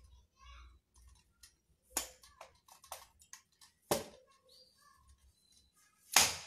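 Black tripod stand being unfolded and set up on a tile floor: scattered sharp clicks and knocks from its legs and fittings, with the loudest knock near the end.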